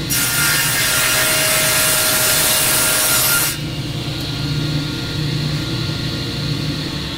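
Table saw blade cutting a miter through a board held in a jig, a loud hissing rip that lasts about three and a half seconds. After that the saw keeps running freely with a steady hum.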